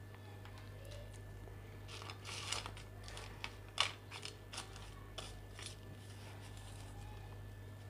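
Light clicks and scrapes of a steel bowl and caramel crunch being handled as the crunch is scattered over ice cream mixture in a plastic box. A cluster of them runs from about two seconds in to nearly six seconds, the sharpest click near four seconds.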